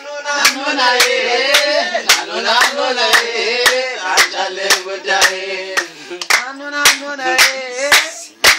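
Singing accompanied by steady rhythmic hand clapping, about two claps a second.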